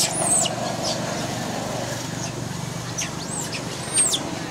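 Young long-tailed macaques squealing: short high-pitched calls that each rise and fall, a couple near the start and a cluster about three to four seconds in, over a steady low rumble of background noise.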